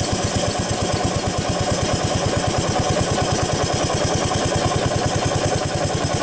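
Stationary steam engine running at a steady speed, its exhaust beating in a fast, even rhythm over a constant hiss of steam.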